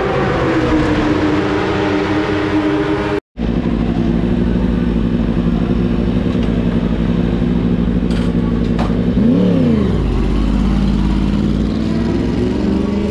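Yamaha YZF-R1 superbike engine running in the pit lane, with a brief dropout about three seconds in. About nine seconds in comes a short rev up and back down, and the revs climb again near the end.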